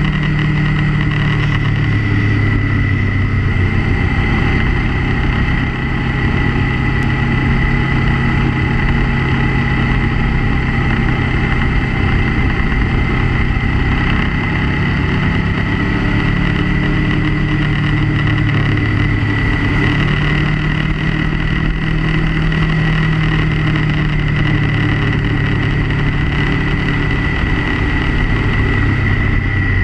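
Motorcycle engine running under way through curves, its pitch easing up and down as the rider rolls on and off the throttle, over continuous wind and road noise. A steady high whine sits on top throughout.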